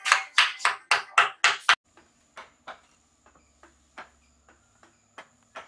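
A wooden mallet striking a chisel into wood: a quick run of sharp knocks, about three a second, that stops abruptly about two seconds in, then fainter, scattered taps over a faint steady hum.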